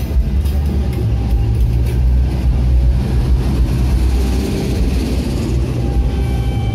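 Stainless-steel passenger train coaches rolling past at close range: a steady, loud low rumble of wheels on rail, which begins to fade near the end as the last coach clears.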